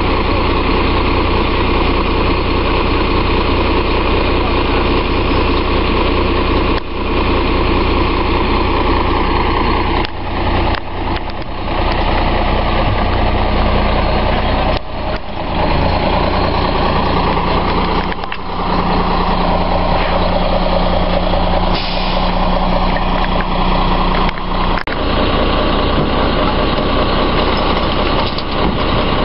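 Front-load garbage truck's diesel engine idling steadily, with a few brief dropouts in the sound.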